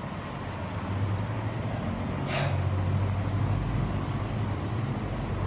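Road traffic: a heavy vehicle's engine rumble that grows louder about a second in, with a short sharp hiss just after two seconds.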